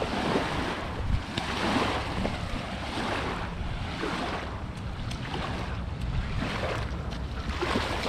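Wind buffeting the microphone, a steady low rumble under a rushing noise that swells about once a second.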